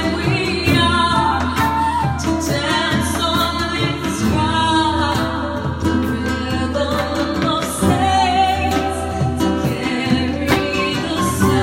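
Live acoustic music: a voice singing a slow song over a strummed acoustic guitar, with a steady low drone sustained underneath.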